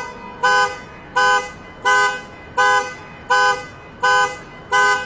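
Car alarm sounding the car's horn in short, evenly spaced honks, about seven in five seconds.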